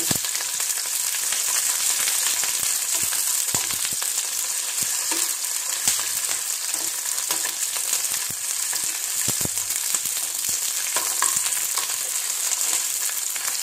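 Green chillies frying in hot mustard oil in a shallow pan: a steady sizzle with scattered sharp pops and clicks, while a steel ladle stirs them.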